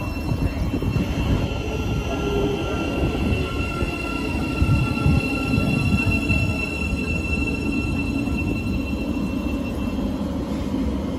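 Thameslink Class 700 electric train rolling slowly along the platform, with a rumble of wheels on rail and a steady high-pitched squeal from the running gear that fades out near the end.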